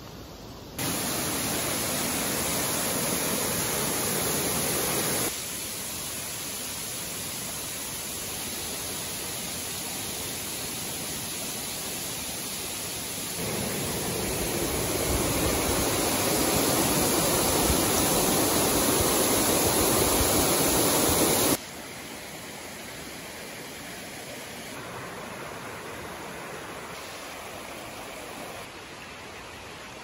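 Steady rush of a mountain stream running over rocks. Its level jumps up and down suddenly several times and is loudest in the middle.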